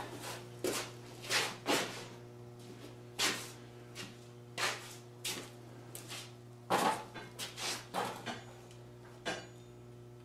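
Scattered knocks and clatters of tools and objects being picked up and moved while rummaging through a workshop, with footsteps, over a steady low hum.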